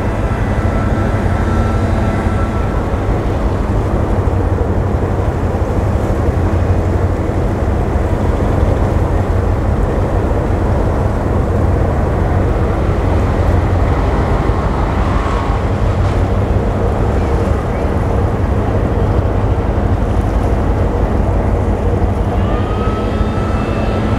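Deep, steady diesel engine rumble from tugboats and a large container ship manoeuvring in harbour. A faint high whine is heard near the start and again near the end.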